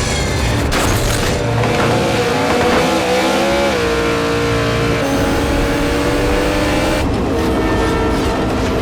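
Drag-racing car engines revving hard at full throttle, the pitch climbing, dropping briefly at a gear change about four seconds in, then climbing again.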